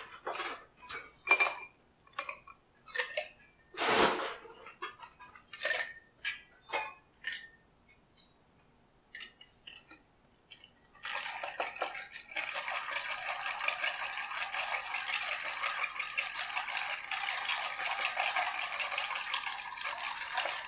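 Ice cubes clinking and knocking into a glass mixing glass one or two at a time, then from about eleven seconds in, a bar spoon stirring the ice round the glass in a steady, continuous clinking rattle, chilling a stirred cocktail.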